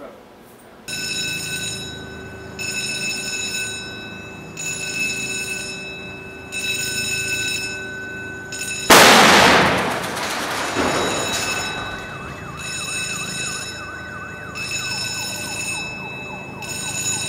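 A warning horn sounds in long repeated blasts about every two seconds. About nine seconds in a single loud blast goes off: a high-power electrical arc fault in a switchgear test cabinet, dying away over a second or two. After it a warbling siren sounds along with the repeating horn.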